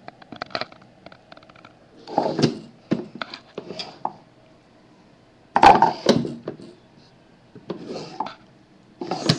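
Knocks and clinks of a small wooden jewelry box being handled, its drawers and the jewelry inside rattling, in a few separate bursts; the loudest comes a little past halfway.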